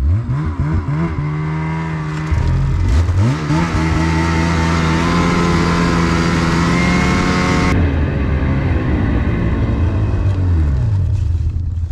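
Snowmobile engine revving up twice as the sled pulls away, then running steadily under throttle. It eases off about eight seconds in and winds down, dropping away near the end as the sled stops.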